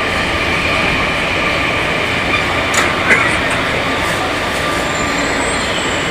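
Rio de Janeiro Metro Line 2 train car running, heard from on board: a steady loud rumble with the hum of its growling motor. A few sharp clicks come about three seconds in.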